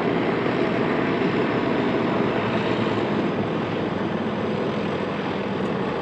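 Steady, unbroken engine noise from heavy military machinery.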